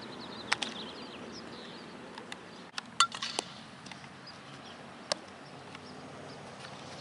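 Outdoor background hiss broken by several sharp clicks and knocks, the loudest about three seconds in, with a cluster around it and single ones near the start and about five seconds in.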